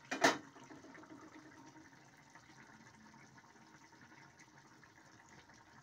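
A pan lid set down with a sharp clink about a quarter second in, ringing briefly. After that, chilli chicken gravy simmering uncovered in a kadai over a gas flame, a faint steady bubbling.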